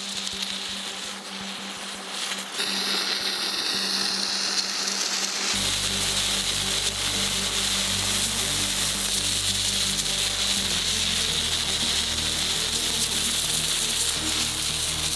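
Steady hiss of a gas torch flame-finishing a granite slab's surface, under background music whose bass line comes in about five seconds in.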